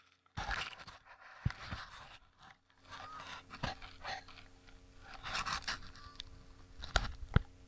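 Close rustling, scraping and crunching of dug soil and grass, with a few sharp knocks, the loudest two near the end.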